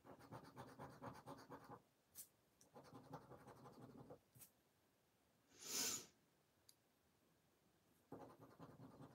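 A plastic poker chip scratching the latex coating off a scratch card in quick, faint strokes, in three spells, with a short hissing rush about halfway through.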